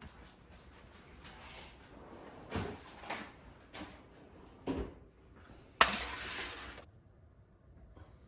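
Kitchen handling noises: a few soft knocks, then a sharp knock about six seconds in followed by about a second of scraping or rustling noise.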